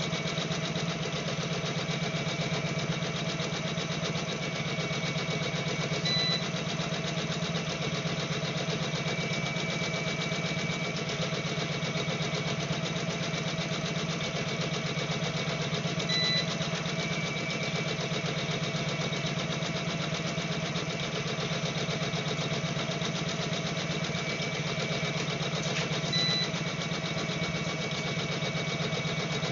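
Computerized embroidery machine running steadily as it stitches a design. Three short high chirps come about ten seconds apart.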